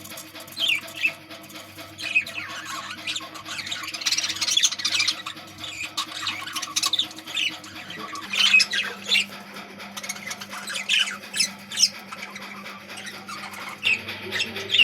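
A colony of budgerigars chattering, with many quick, overlapping high chirps and squawks.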